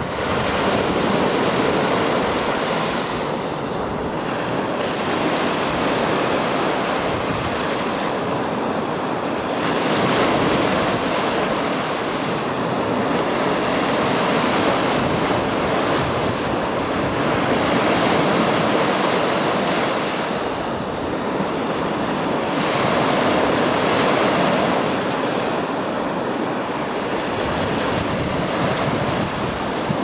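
Lake surf: small waves breaking and washing up a sandy shore among boulders, a steady rush that swells and eases every few seconds.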